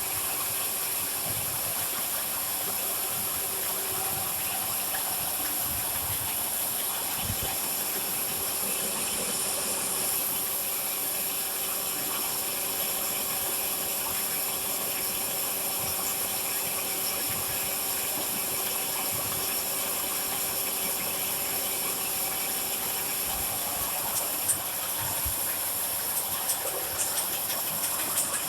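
Automatic can body welding machine running: a steady high hiss with a faint steady hum beneath it. A run of light clicks comes in near the end.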